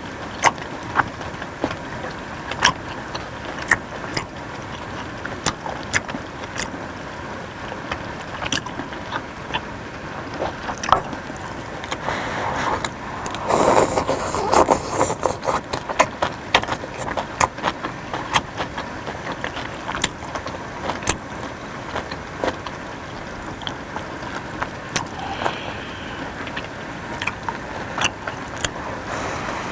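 Sharp clicks of utensils against dishware, scattered every second or so, over a steady hiss. About twelve seconds in there is a louder, noisier stretch lasting a few seconds.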